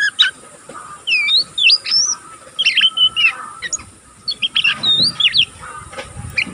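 Young oriental magpie-robin (kacer) twittering ('ngeriwik'): an unbroken string of short, varied chirps and quick sliding notes, the practice chatter of a juvenile still learning its song.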